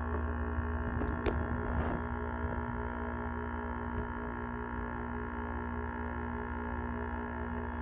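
Frigidaire window air conditioner running, its compressor and fan motor giving a steady, even hum with a few light clicks about a second in.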